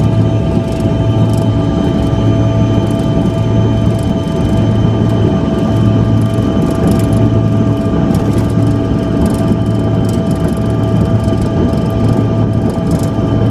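Jet airliner's engines heard from inside the cabin: a steady loud rumble with several held whining tones, and a low hum that swells and fades about once a second.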